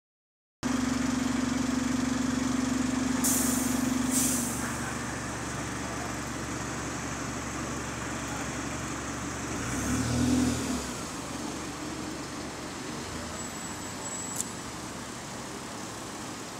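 Alexander Dennis Enviro bus idling with its engine-driven air compressor running as a steady hum; about four seconds in the compressor switches off, with two short hisses of air, and the hum stops. About ten seconds in the engine revs as the bus pulls away, leaving its engine and the traffic noise fainter.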